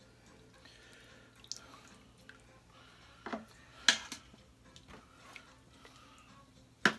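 Cooked pot roast being lifted out of its broth in an Instant Pot's steel inner pot: liquid dripping and splashing, with a few short sharp knocks, the loudest about four seconds in and another near the end.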